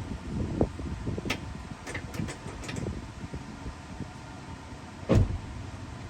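Handling noises from work: a few light clicks in the first half and one heavier thump near the end.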